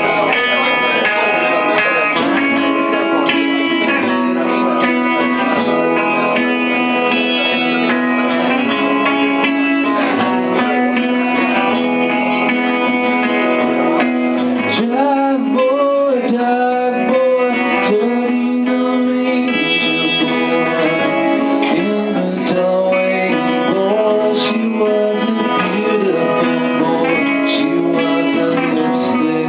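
Live band playing a song, with strummed guitar to the fore and held notes throughout.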